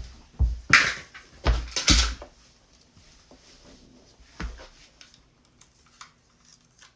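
Objects being handled: several knocks and rustles with deep thuds in the first two seconds, then only a few faint clicks.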